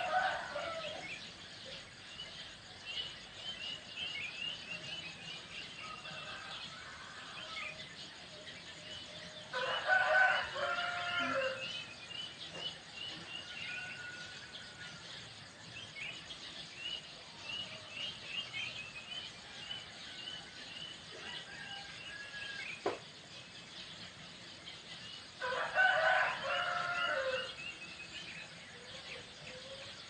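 A rooster crowing three times: right at the start, about ten seconds in and near the end. Between the crows, small wild birds keep calling with short, high, repeated chirps.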